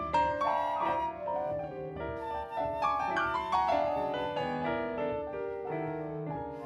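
Small jazz group playing: piano with flute and double bass, the piano's notes moving quickly over held flute and bass tones.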